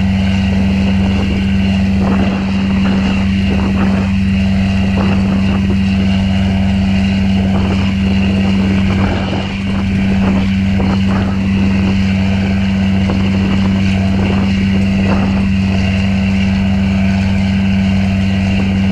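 Boat's inboard engine running steadily under way, a loud, even low drone.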